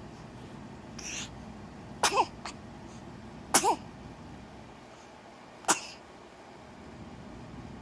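Newborn baby hiccuping three times, about a second and a half to two seconds apart, each hiccup a sharp catch with a tiny squeak of voice.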